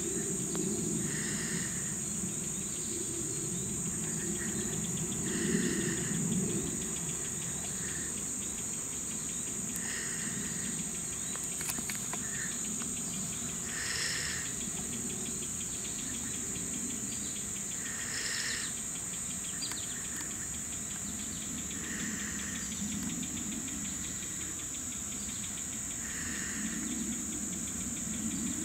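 Steady high-pitched insect chorus of crickets, with short calls recurring every few seconds over a low background rumble.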